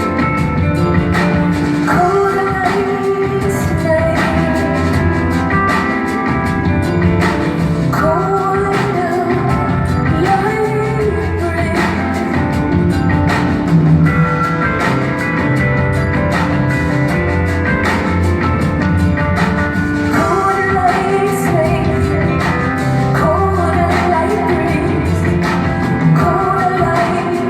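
Live rock song performed by a band: a woman sings lead over a steady drum beat, a strong bass line and sustained keyboard or guitar chords.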